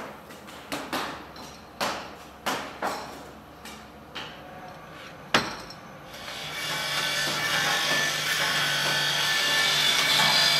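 About nine sharp metal clanks as a tub of steel brake shoes is handled and moved. From about six seconds in, a machine runs with a steady, loud rasping, grinding noise over a low motor hum.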